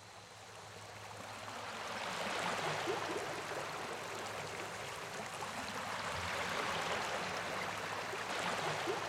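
Surf washing onto a sandy beach, growing louder over the first couple of seconds, then swelling and easing in two broad surges.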